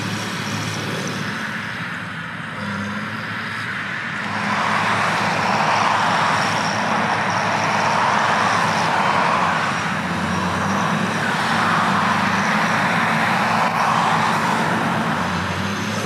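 Heavy harvest machinery running steadily in a corn field: a low diesel drone under a rushing, churning noise that swells about four seconds in and then pulses slowly.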